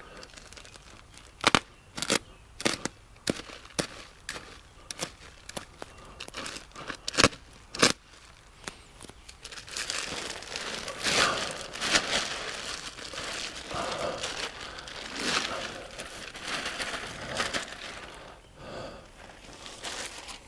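Plastic bag of black mulch crinkling and rustling as it is handled, with a run of sharp snaps over the first eight seconds or so, then a denser, steadier rustle as mulch is tipped out of the bag.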